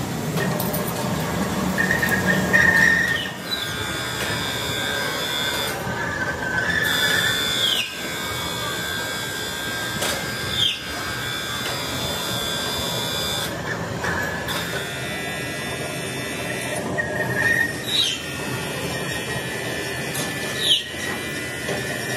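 Metalworking machinery running steadily, with high whining tones and a short falling squeal every few seconds.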